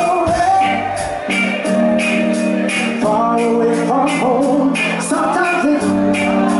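Live reggae band, with drum kit, bass and guitar, backing a male singer who sings over a steady beat.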